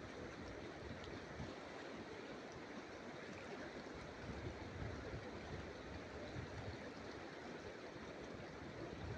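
River current running over shallow water beside the bank, a steady rushing hiss with low rumbles now and then.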